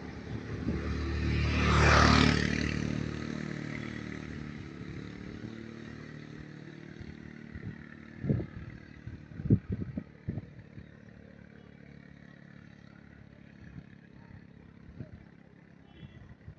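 A motor vehicle passing close by, its engine swelling to a peak about two seconds in and fading away over the next several seconds. A few short knocks follow in the middle.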